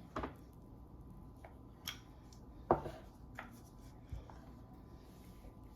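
A handful of light clicks and knocks of a kitchen utensil against cookware, about five in all, the loudest a little before three seconds in.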